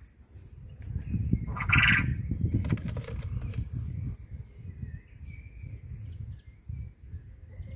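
A male quail crowing once, a short harsh call about a second and a half in, followed by about a second of clicky noise, over a low rumble.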